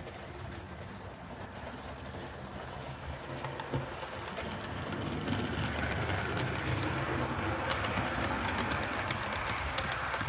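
Model railway train running past: a low hum and rumble of wheels on the track that grows louder about halfway through as the locomotive and coaches come close, with quick clicks of wheels over the rail joints.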